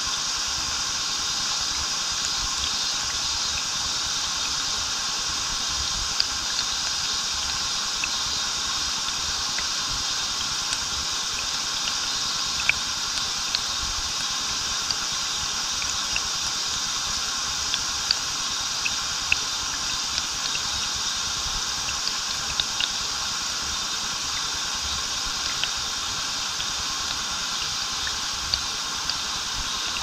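A small waterfall pouring steadily into a stream, a constant hiss of falling water, with scattered small splashes ticking over it.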